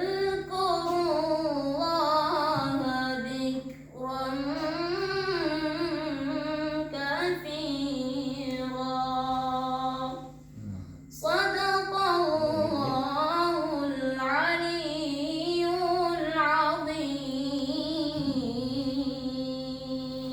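A high voice reciting the Qur'an in a melodic tilawah style: long, ornamented phrases with brief pauses for breath about 4 seconds in and again around 10 seconds in.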